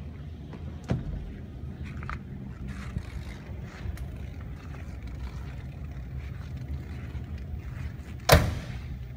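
A classic car's door swung shut by hand, one loud slam near the end, over a steady low hum, with a few light knocks earlier.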